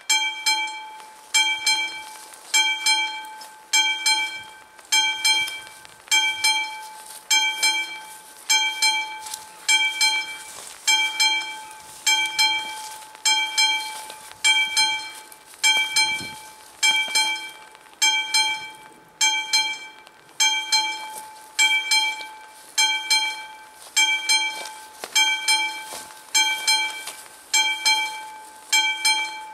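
Classic electric bell of an AŽD 71 level-crossing warning signal ringing in short, repeated bursts, about one every 1.2 seconds, starting right at the beginning: the crossing is warning of an approaching train.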